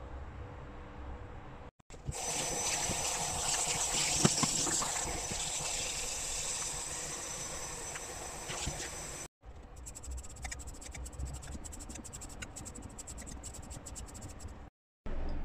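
Tap water running onto celtuce leaves in a stainless steel sink, as a steady hiss. After a cut, it gives way to a quick run of small scraping clicks as the skin is peeled off a celtuce stalk.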